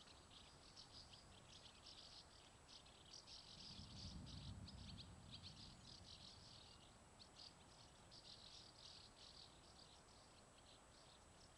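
Faint crickets chirping in rapid, continuous pulses, with a brief low rumble about four seconds in.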